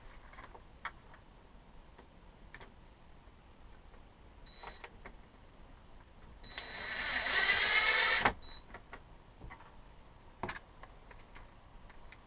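Cordless drill driving a screw in one burst of about two seconds, its motor pitch rising as it spins up, then stopping suddenly, among scattered light clicks of parts being handled.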